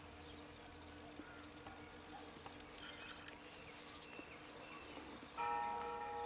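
Outdoor garden ambience: small birds chirping over and over, high and faint, over a low steady hum. About five seconds in, a louder sustained tone with several pitches starts and holds.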